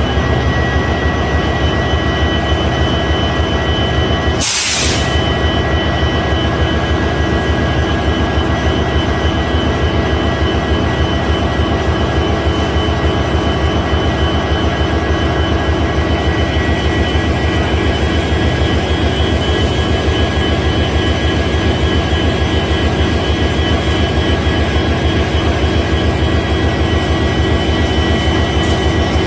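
WDP4B diesel-electric locomotive's EMD 16-cylinder two-stroke engine running steadily while the locomotive stands still, a loud low pulsing under a steady high whine. A brief dropout about four and a half seconds in.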